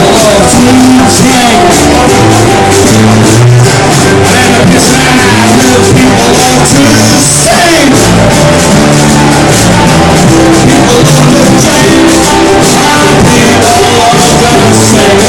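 A live band playing loud, fast punk-folk music, with a voice singing over it.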